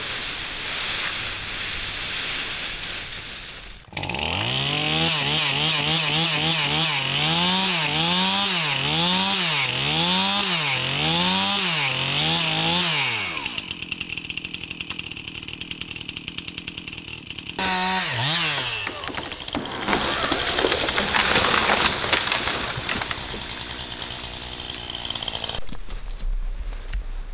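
Stihl MS271 Farm Boss gas chainsaw cutting into a tree trunk at high revs, the engine speed sagging and recovering about once a second as the chain bites. The saw winds down briefly about two-thirds of the way through, and more cutting follows, broken by abrupt cuts in the sound.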